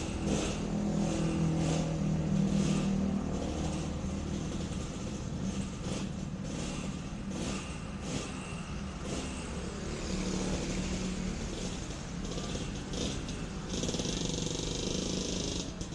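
Yamaha RX King's two-stroke single-cylinder engine running steadily, loudest in the first few seconds, with a rush of hiss near the end.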